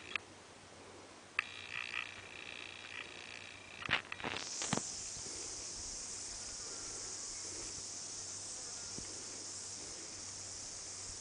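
A steady high-pitched insect chorus that swells in about four seconds in and then holds. Before it, a short whir and a few sharp clicks.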